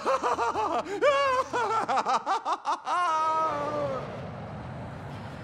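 A man's gloating cartoon-villain laugh, a run of rapid "ha-ha" pulses for about four seconds that ends in one long falling laugh. This is followed by the steady rushing hum of a passing jet airplane.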